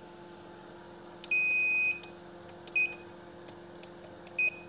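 Sharp washing machine's control-panel beeper sounding as its buttons are pressed to select the spin cycle: one long beep, then two short beeps at the same high pitch.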